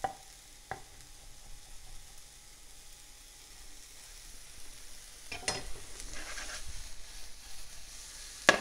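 Diced onions sweating in butter in a frying pan, a soft sizzle that grows louder about five seconds in. A couple of knife taps on a wooden chopping board at the start and one sharp knock near the end.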